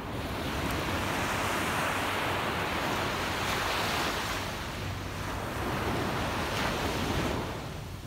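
Small sea waves breaking and washing up a sand beach: the surf hiss swells in at the start, stays loud with a brief dip around the middle, and fades shortly before the end.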